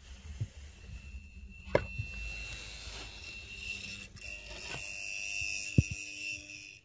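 Faulty Honeywell V4043H two-port zone valve powerhead motor running noisily as it engages: a steady high-pitched buzzing whine with a hiss over it and a couple of sharp clicks. The motor is straining because it turns but fails to flip the micro switch that turns the heating on, maybe not moving fully into position.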